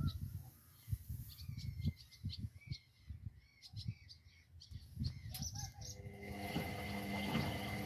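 Indesit EcoTime washing machine during a delicates rinse: irregular low thuds of the drum and water, with short high chirps over them, then a steady motor hum that starts about six seconds in as the drum turns.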